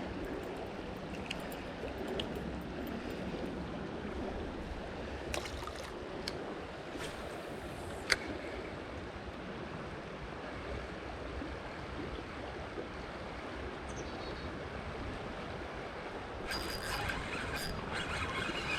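Steady rush of flowing river water, with a few sharp clicks scattered through the middle and a denser burst of clicky noise near the end.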